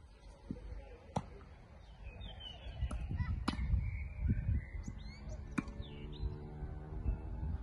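Tennis ball struck by rackets in a rally: three sharp hits about two seconds apart, over a low rumble, with birds chirping.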